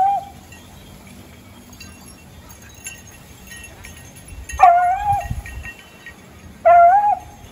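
Beagle baying: high, drawn-out cries, each under a second. One fades out just after the start, and two more come at about four and a half and six and a half seconds.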